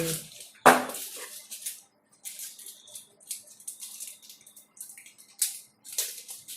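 Plastic packaging rustling and crinkling in short, irregular spells as small items are unpacked, with one sharp knock about two-thirds of a second in.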